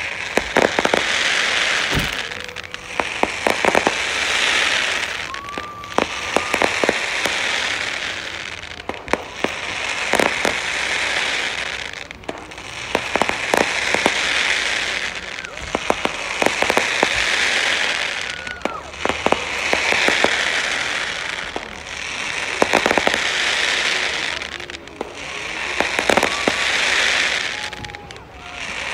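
Fireworks display: bursts about every three seconds, each a cluster of sharp bangs followed by a swelling crackle that fades before the next.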